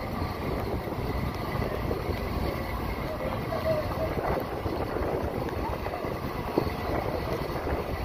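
Storm wind buffeting the microphone, a steady low rumbling with gusts.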